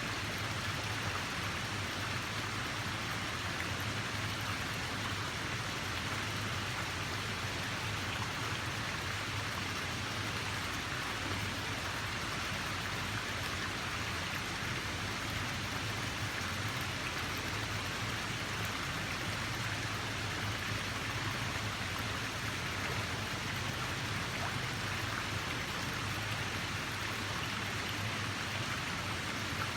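Steady rushing water, an even splashing hiss that does not change, with a low rumble underneath.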